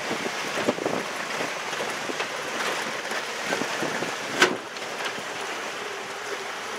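Vehicle rolling over a rocky dirt trail: a steady noisy crunch of tyres on dirt and gravel with small rattles and clicks, and one sharp knock about four and a half seconds in.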